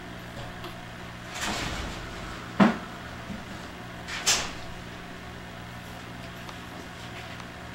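A sharp knock about two and a half seconds in, with a short rustle just before it and a brief hissing scrape at about four seconds, over a steady low hum.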